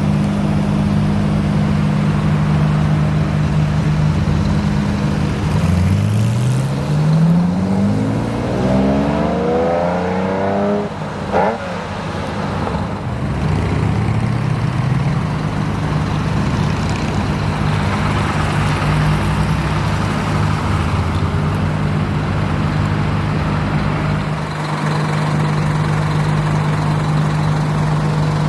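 A sports car's engine accelerating hard away, its pitch climbing steadily for about five seconds before breaking off sharply, then rising again more gently. Underneath, another engine idles with a steady hum.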